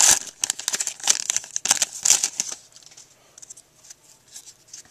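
Trading-card pack wrapper crinkling in the hands in quick crackly bursts for about two and a half seconds, then dying down to faint handling noise.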